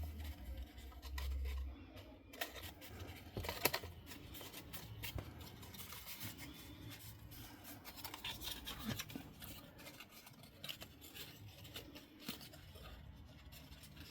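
Cardstock being handled, folded and pressed into place by hand: irregular rustling, scraping and light taps of stiff paper.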